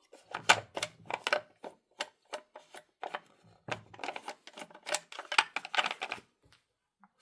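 Rapid, irregular clicks and knocks of a Sachs-Dolmar 133 chainsaw being handled, its parts tapping and rattling, with the engine not running.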